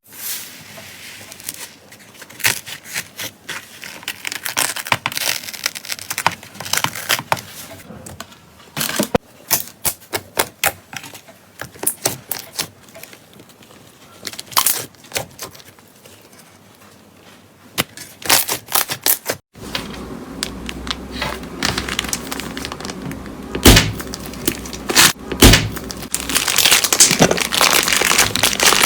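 Slime being squeezed and pressed by hand, making irregular sticky clicks and crackling pops. About two-thirds of the way through it changes to a louder, denser crackling.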